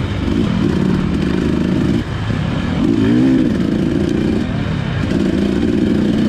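Dirt bike engine running under load in third gear as the rider rolls on the throttle. Its note drops briefly about two seconds in, then rises and falls in a quick rev about a second later.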